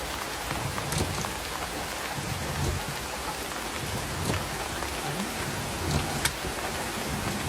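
Torrential rain heard from inside a small electric-tricycle camper: a steady, dense hiss of pouring rain with scattered sharp clicks of individual drops striking the vehicle.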